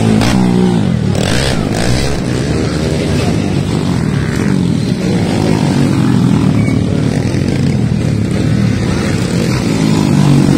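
Motocross dirt bike engines running and revving, the pitch rising and falling near the start and again near the end.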